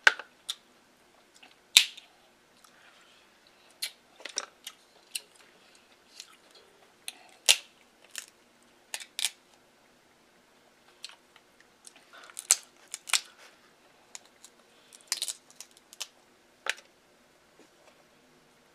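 Close-up eating sounds: chewing and mouth smacks with sharp clicks at irregular intervals as king crab leg meat is picked from the shell and eaten.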